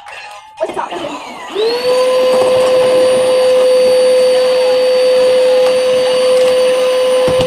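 Vacuum cleaner switched on about a second and a half in, its motor spinning up quickly to a steady high whine over a rushing hiss and running on. A few knocks come just before it starts.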